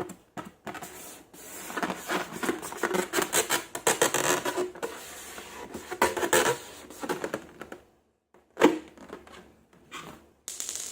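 Hands working slime and balloons: a dense, irregular run of small clicks and crackles, then a short pause and one sharp snap about two-thirds of the way through, followed by a few quieter handling noises.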